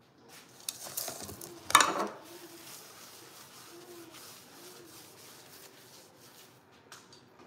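A metal pot clunks once on the counter about two seconds in. Then a paper towel rubs back and forth across a granite countertop, wiping it down.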